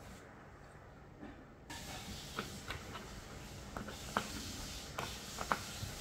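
Steady hiss that gets louder about two seconds in, followed by scattered light clicks and taps of small kit parts being handled.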